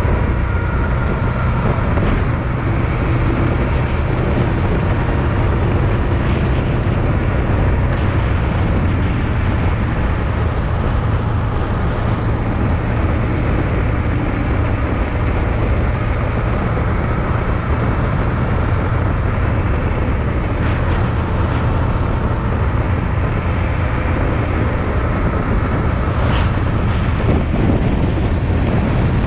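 Honda Transalp XL650V's V-twin engine running steadily while riding, with wind rushing over the microphone.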